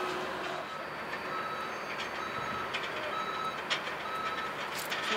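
Reversing alarm of an airport ground-service vehicle, a single high beep repeating about once a second, over a steady background hum of the apron.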